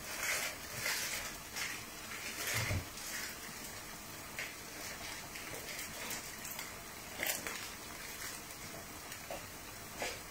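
Akara (bean fritters) deep-frying in a pan of hot oil: a steady sizzle with scattered crackles and pops, and one low knock about two and a half seconds in.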